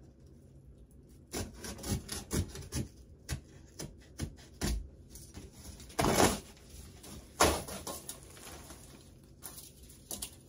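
Cardboard shipping box being cut open at one end with a utility knife and the flap pulled back: irregular scraping and tearing rasps from about a second in, the loudest a long rasp a little past halfway and a sharp one soon after.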